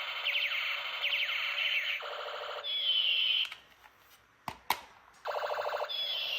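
A battery-powered toy gun's electronic sound effects play through its small speaker as a buzzing, repeating pattern. About three and a half seconds in it stops, two sharp clicks follow, and the sound starts again near the end.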